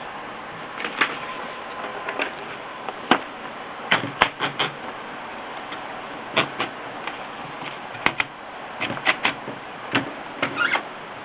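Olivetti Lettera 22 manual portable typewriter being typed on: irregular key strikes, some single and some in quick runs of two to four, with short pauses between.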